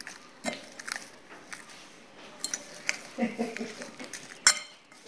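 A spoon stirring fried beef pieces and spices on a plate: scattered clicks and scrapes of the spoon against the plate, the sharpest a click near the end.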